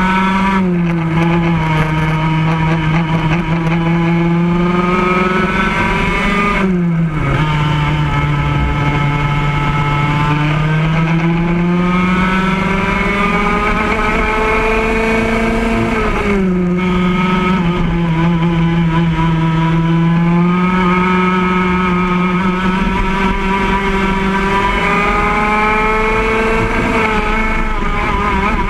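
Racing go-kart engine heard from on board, running hard: its pitch climbs steadily as it accelerates down each straight and drops sharply as the kart slows for a corner, about a quarter of the way in, just past the middle and again at the very end.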